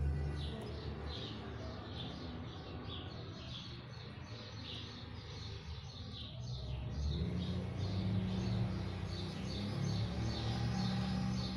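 A bird chirping over and over, a short high chirp about twice a second at a steady pace, with a low hum underneath that grows louder in the second half.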